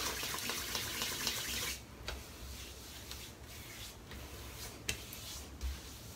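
Hands rubbing Shave Works Cool Fix gel over a freshly shaved scalp: a steady rubbing hiss for about the first two seconds, then quieter rubbing with a few faint clicks.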